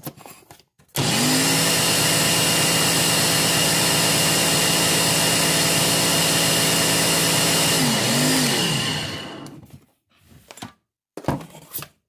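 Countertop blender switched on and running steadily, emulsifying oils, melted beeswax and aloe juice into lotion. Its pitch dips and recovers briefly before it is switched off and spins down, followed by a couple of short knocks near the end.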